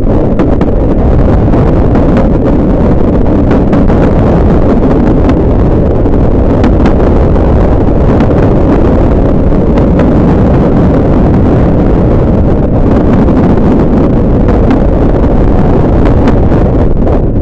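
Heavy wind buffeting a microphone held out of the window of a steam-hauled train running at speed, with the train's running noise beneath. The sound is loud and steady throughout.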